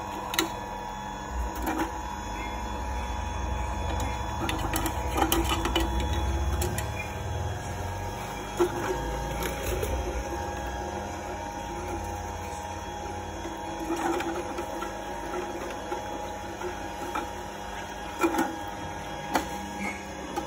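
MIUI 43 rpm cold-press slow juicer running: a steady motor whirr with scattered sharp cracks and clicks as the auger crushes fruit pieces.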